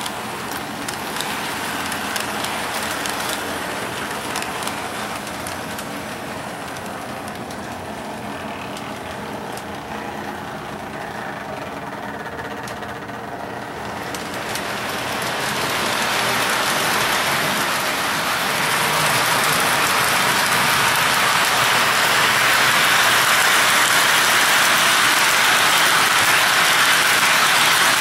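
Lionel O-gauge Budd rail-diesel-car train running on three-rail track: the steady whir of its electric motors and the rattle of metal wheels on the rails. It grows louder about halfway through as the train comes near.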